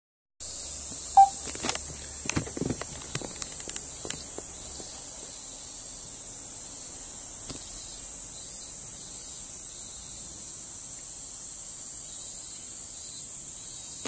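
Cicadas shrilling in a steady, unbroken high-pitched chorus. In the first few seconds it is overlaid by scattered clicks and a short, loud high tone about a second in.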